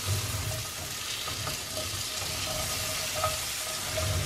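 Chopped onion sizzling in hot oil and chicken drippings in a frying pan as it is sautéed, stirred with a spatula in repeated soft strokes against the pan.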